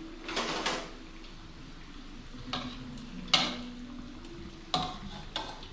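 Vegetable-and-shrimp fritters sizzling in hot oil in a wok, with several sharp clinks of a metal spatula against the wok and bowls.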